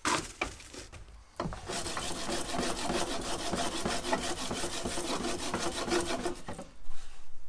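Wooden-framed wire-mesh sand riddle being shoved rapidly back and forth on the steel rails of a foundry molding bench, with wood scraping on the rails and molding sand rasping through the screen as it is sifted for tempering. There is a sharp knock at the very start, and a few louder knocks near the end.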